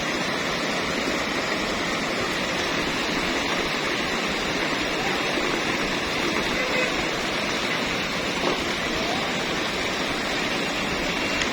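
Sea water rushing in a steady, even roar, with no distinct breaks between waves.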